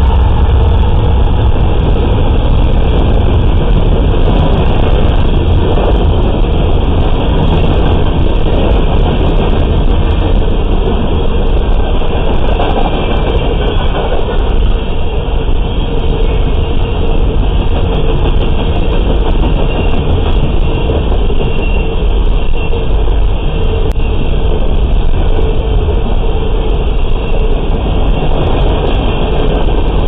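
A long, fast freight train of coal hopper cars rolling past: a steady, loud rumble of steel wheels on the rails.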